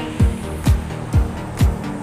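Background music with a steady kick-drum beat, about two beats a second, and a melody over it.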